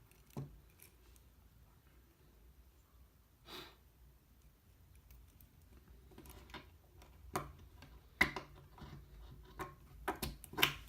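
Scattered small clicks and taps of an Allen key and metal knife parts being handled while the pivot sex bolts of a BRS Replicant balisong are pushed out, the loudest about eight seconds in and several more close together near the end. A short breath-like hiss comes about three and a half seconds in.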